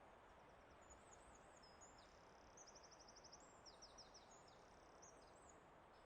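A faint songbird singing a phrase of high chirps and quick slurred notes, with a rapid trill in the middle, over a soft steady hiss of forest ambience.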